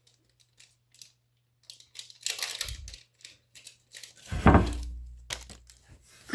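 Trading card booster pack being crinkled and torn open, with scattered rustles and clicks of handling; a single thump with a low rumble about four and a half seconds in.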